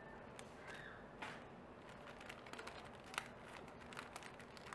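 Faint rustling and scattered small clicks of paper craft items and their packaging being handled.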